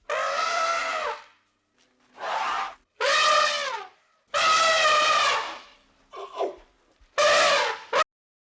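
Farm animal bleating: six loud, wavering cries, some long and some short, the last one cut off abruptly about eight seconds in.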